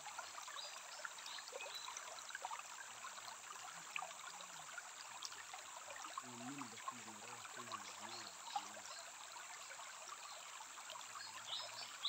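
Shallow stream trickling and rippling steadily over stones and gravel.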